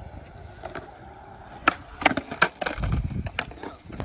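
Skateboard on a concrete flat: a run of sharp wooden clacks of the board popping and slapping down, starting about one and a half seconds in, with a short low rumble of the wheels near three seconds.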